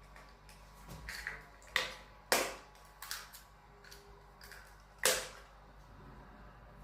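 Eggs being cracked against the mixing bowl: a few sharp taps, the loudest about two seconds in and again about five seconds in, with fainter clicks between.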